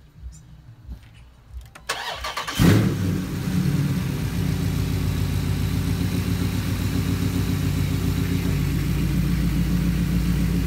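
Dodge Charger Scat Pack's 392 HEMI V8 cranking briefly and catching about two seconds in, flaring up loudly, then settling into a steady idle. It is breathing through a freshly fitted JLT open-element cold air intake.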